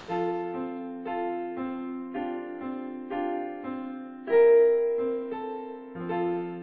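Keyboard music with a piano-like tone: a slow run of struck notes and chords, about two a second, with one louder note a little past four seconds in.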